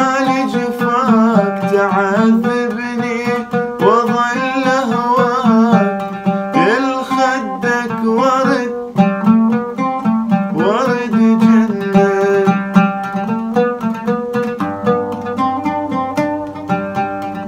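Oud being plucked in a steady run of notes while a man sings in long sliding phrases; the voice stops about twelve seconds in and the oud carries on alone.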